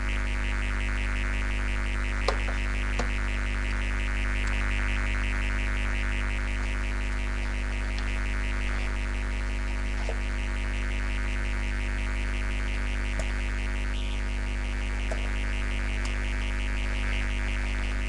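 Steady humming drone made of several held tones, with a fast throbbing buzz higher up and two faint clicks a couple of seconds in.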